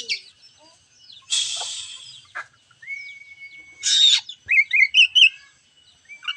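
Oriental magpie-robin singing a varied phrase: a harsh rasping note about a second in, a long steady whistle about three seconds in, then a loud sharp note and a run of quick chirps.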